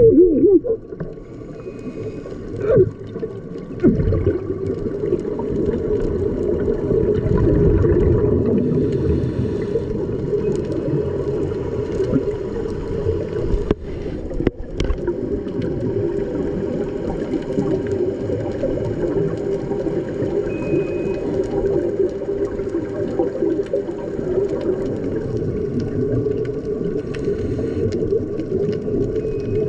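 Underwater ambience picked up by a GoPro in its dive housing: a steady, dense low wash with gurgling water and faint steady hums above it.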